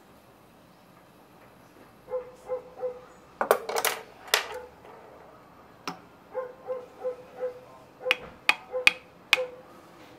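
Short animal calls in quick groups of three or four, heard three times, with several sharp clicks in between, the loudest about a third of the way in.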